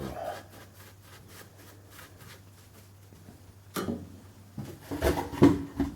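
Fireclay firebricks knocking and scraping against the stove's firebox as they are handled and fitted. There are a few faint ticks at first, one sharp knock a little before four seconds in, then a cluster of clunks and scrapes near the end.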